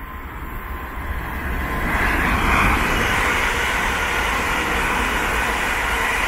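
London Northwestern Railway Class 350 electric multiple unit, two units coupled, passing on the main line: rail and wheel noise swells about two seconds in and then holds steady and loud as the coaches go by.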